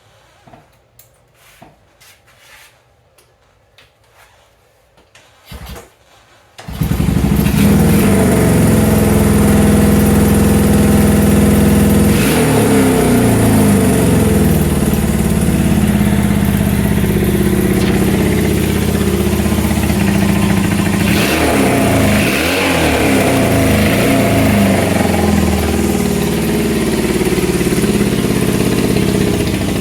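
The 1974 Honda CL200's air-cooled parallel-twin engine, freshly rebuilt after a holed piston, being kick-started: a few faint clicks and knocks, then it catches about seven seconds in and runs steadily. Its pitch dips and recovers a few times as the throttle is worked.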